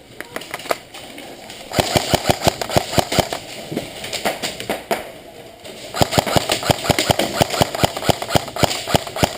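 Airsoft guns firing on full auto: two long bursts of rapid clacking shots, the first starting about two seconds in and stopping a little before the midpoint, the second starting about six seconds in and still going at the end.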